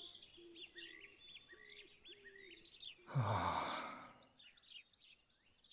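Small birds chirping in short repeated calls, and about three seconds in a man's long sigh that falls in pitch.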